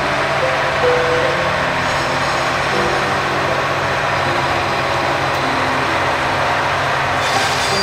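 Diesel engine of a KiHa 183 series diesel railcar idling with a steady hum. A hiss comes in near the end.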